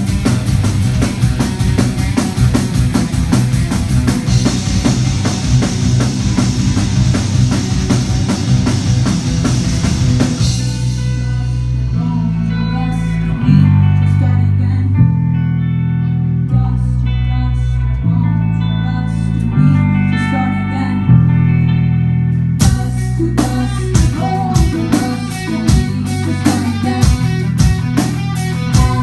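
Rock band playing live, with drum kit and electric guitar. About ten seconds in the drums drop out, leaving long held low notes that change every second or two with a quieter guitar. Near the end the drums and the full band crash back in.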